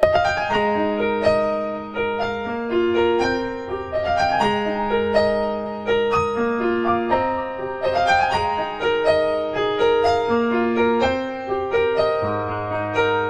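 Background music: a piano playing a gentle melody over repeating broken chords.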